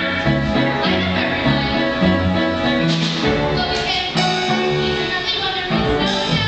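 Instrumental music from a stage musical's accompaniment, a steady moving bass line under held melody notes, with no clear singing.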